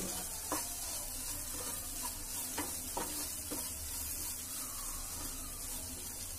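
Wooden spatula stirring and scraping sautéed vegetables in a non-stick kadai, with a few light knocks against the pan over a faint, steady sizzle.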